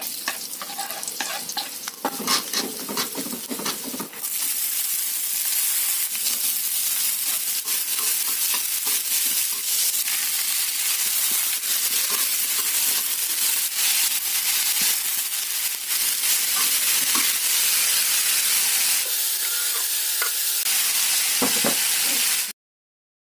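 Vegetables stir-frying in a hot wok: a few seconds of clatter and scraping, then a loud steady sizzle from about four seconds in, with the spatula scraping and knocking against the pan. It cuts off suddenly just before the end.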